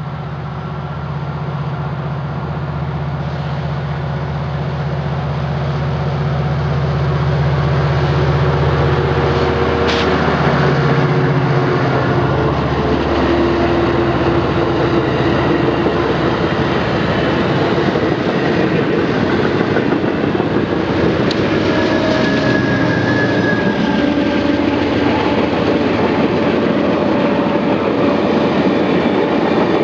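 Amtrak Pacific Surfliner passenger train passing close by. A diesel locomotive's steady engine drone drops in pitch as it goes past about ten seconds in. Then comes the steady rumble and clatter of the passenger cars rolling over the rails.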